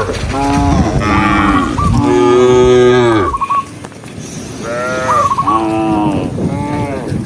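Cattle mooing: about five loud moos one after another, with a brief lull about halfway through.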